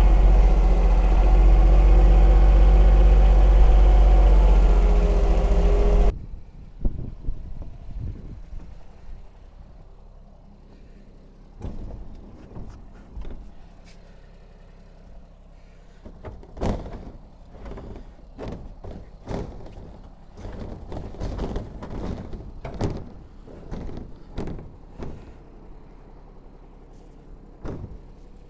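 John Deere 2210 compact tractor's three-cylinder diesel engine running steadily, then cutting off abruptly about six seconds in. After that come scattered knocks and thumps.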